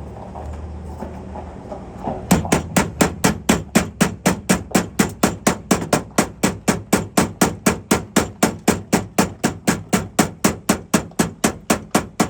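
Rapid hammer blows on the car's metal body piece, about four a second and very even, starting about two seconds in and running some ten seconds. The metal is being beaten into a new shape so the tail light can sit flush.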